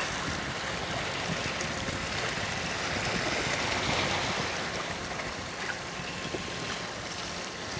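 Steady rush of sea waves and wind against the microphone, swelling slightly in the middle, with no distinct events.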